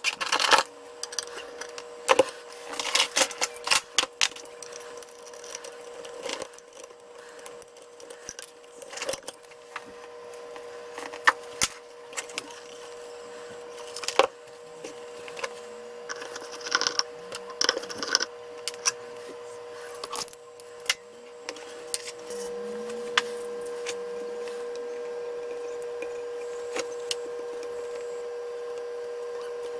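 Clicks, taps and clinks of hands and small screwdrivers working on the aluminium housing of a Sony U-matic video head drum as it is taken apart. A steady hum runs underneath and gets louder about two-thirds of the way through.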